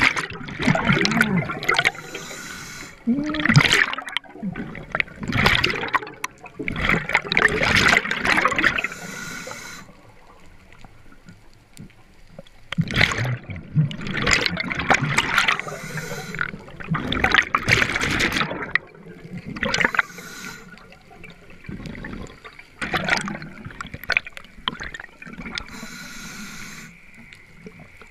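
Underwater bubbles from a diver's breathing, gurgling in repeated bursts of a second or two with quieter gaps between, with a fainter hiss in the gaps.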